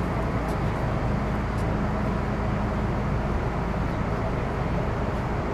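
Steady cabin noise inside an MTR Metro Cammell M-Train electric multiple unit: an even rumble and hiss with a low hum, and a faint steady tone that comes in about a second in and fades out past the halfway point.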